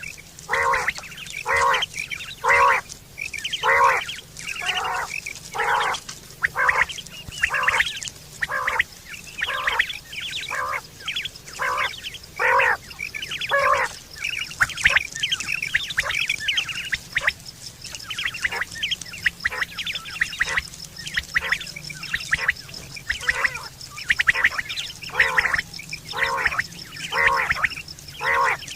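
Quail calling: a long run of short, harsh notes repeated about one to two a second, with brief pauses between bouts.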